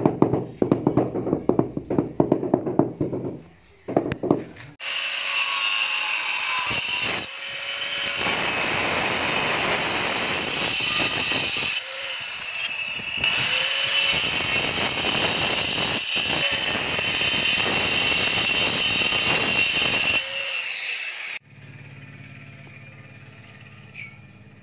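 Handheld angle grinder with a diamond disc cutting ceramic floor tile. It starts about 5 s in, drops out briefly twice and stops abruptly near the end. A few seconds of rapid knocking come before it.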